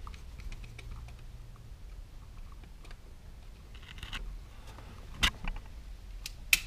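Light clicks and scrapes of a screwdriver working the screw terminals of a GFCI receptacle, and of the receptacle and its wires being handled, with two sharper clicks, one about five seconds in and one near the end.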